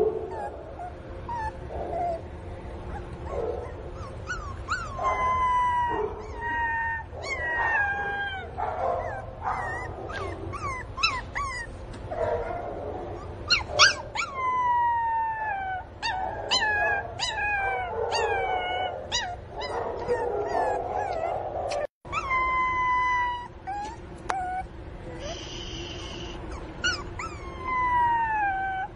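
Miniature Pinscher puppy crying: many high-pitched whines and yelps, each falling steeply in pitch, coming in quick runs one after another. The uploader takes the crying for the puppy missing its mother.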